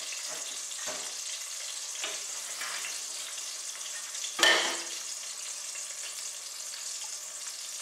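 Sliced carrots and garlic frying in olive oil in a saucepan, sizzling steadily, with a few faint clicks and one sharp knock a little past halfway through.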